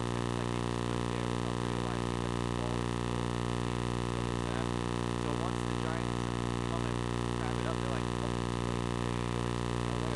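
A steady electrical hum with many overtones, loud and unchanging, with faint, indistinct men's voices talking underneath.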